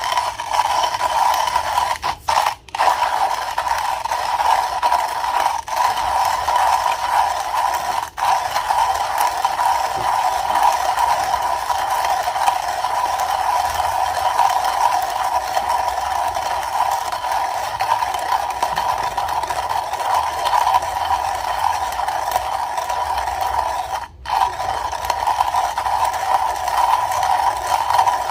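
Comandante manual coffee grinder being hand-cranked, its burrs crushing a 10 g dose of coffee beans in a continuous crunching grind, broken by a couple of short pauses.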